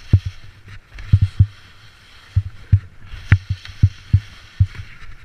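Skis scraping over hard-packed snow during jump turns, with a dozen or so sharp, dull thumps coming irregularly in clusters as the skis land and the poles plant.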